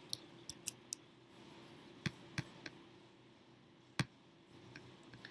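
A few scattered light clicks, some in quick pairs, the sharpest about four seconds in, over a faint steady hum.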